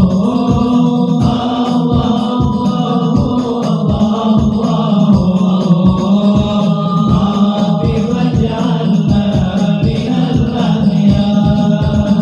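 Voices chanting sholawat, devotional Arabic praise of the Prophet, in a steady melodic line over an even, rhythmic low beat.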